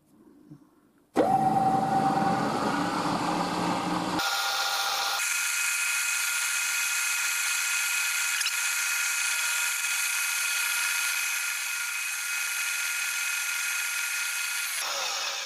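Milling machine spindle starting up about a second in and running at top speed with a 6 mm end mill fitted, giving a steady mechanical whine. About four seconds in the sound changes abruptly to a higher, hissier whine that carries on and fades near the end.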